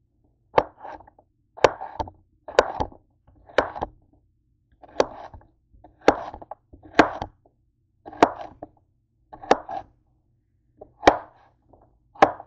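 Chef's knife chopping through zucchini onto a cutting board: a sharp knock with each cut, about a dozen cuts spaced roughly a second apart, some followed by a light scrape.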